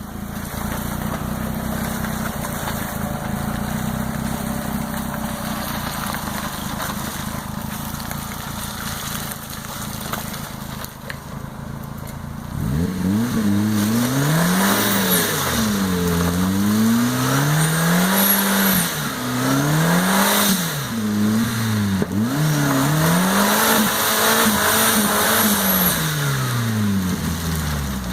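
A 4x4 vehicle's engine runs at a steady pitch. About halfway through it begins revving up and down over and over, its pitch rising and falling every second or two.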